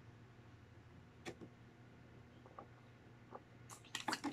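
Faint, scattered clicks and crinkles of a plastic water bottle with a sport cap being handled and drunk from, more of them close together near the end.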